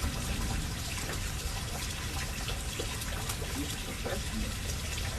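Steady rain falling, with scattered sharp ticks of drops splashing close by.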